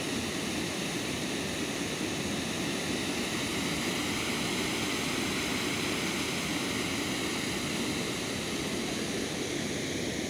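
Steady rushing of water spilling over a concrete check dam's weir crest and churning in the foamy pool below.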